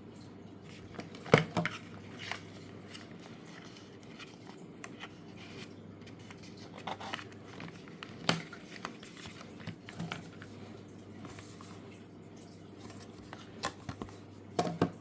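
Scattered light taps and clicks of small objects being handled, a few at a time with pauses between, over a steady low hum.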